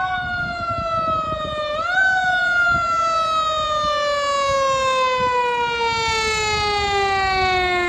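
Fire engine's mechanical siren winding down in one long falling wail. About two seconds in it is briefly pushed back up, then keeps sliding lower, with the truck's engine and road rumble underneath.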